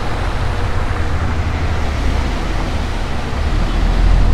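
A car driving through a flooded street, its tyres throwing up water in a steady splashing hiss over a heavy low rumble that grows louder near the end.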